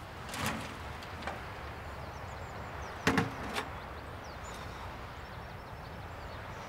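A metal garden spade working the soil. There is a scrape about half a second in, then a cluster of sharp knocks with a brief metallic ring about three seconds in, over a steady low outdoor rumble.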